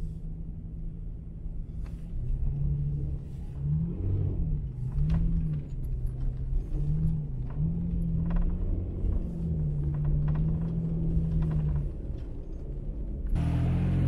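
Toyota Tacoma pickup's engine heard from inside the cab, revving up and down as it drives through deep snow, over a steady low rumble with scattered knocks. Near the end the engine is heard from outside as the truck passes, louder, with its pitch rising and a hiss of snow being thrown up by the tyres.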